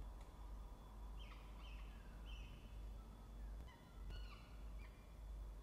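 Peregrine falcon chicks giving faint, short high-pitched begging cheeps as they are fed, about a dozen notes in two quick runs, over a steady low hum.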